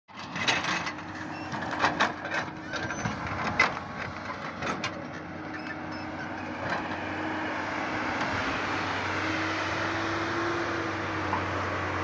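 JCB JS215 tracked excavator's diesel engine running as it works through snow, with a string of sharp knocks and clanks over the first five seconds. After that the engine settles into a steady drone that rises a little in pitch about nine seconds in.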